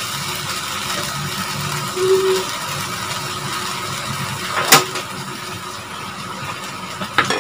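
Steady cooking noise from a wok of tomato and egg stir-fry on a gas stove, with a spatula stirring at first. There is one sharp click a little under five seconds in.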